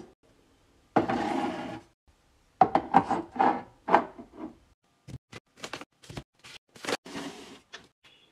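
Canisters and small glass jars being set down and slid on a cabinet shelf: a scrape about a second in, then a run of knocks and rubs, then a quick series of sharp taps and clinks.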